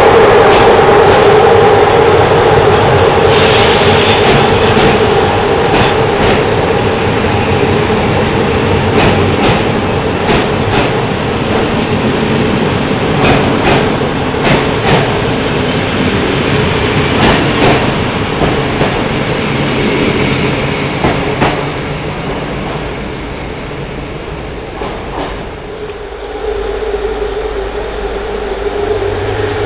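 Passenger coaches of an electric-hauled train rolling away along the platform, wheels clicking over rail joints as the rolling noise slowly fades. Near the end it switches to the steady hum of an electric locomotive standing at the platform.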